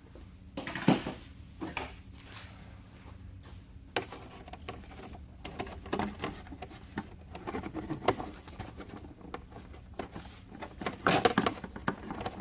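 Plastic engine cover being handled and pressed back into place on a Ford 3.5 EcoBoost: scattered clicks, knocks and rustles, loudest about a second in and again around eleven seconds in.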